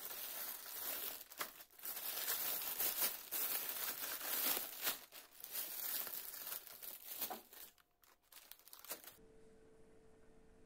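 Clear plastic parts bags crinkling and rustling as they are handled, in uneven bursts. The crinkling stops abruptly about nine seconds in, leaving a faint steady hum.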